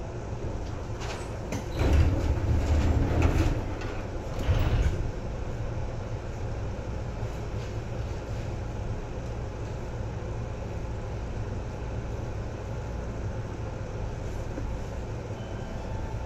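Seibu 2000 series electric commuter train heard from inside the car: a steady low hum and rumble, with louder clattering noise between about two and five seconds in.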